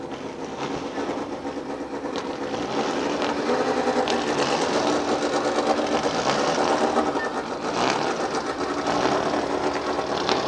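An engine running steadily with a fast, even mechanical clatter, growing louder over the first few seconds.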